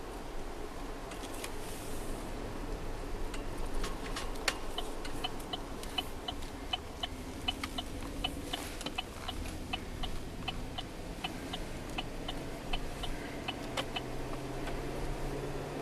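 A car's turn-signal indicator clicking steadily, about two to three ticks a second, over engine and road hum inside a vehicle cabin. The engine hum rises in pitch near the end.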